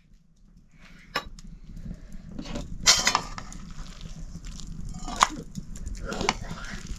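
Scattered sharp clatters and knocks of dishes and utensils being handled at a meal, four or so in seven seconds, the loudest about three seconds in.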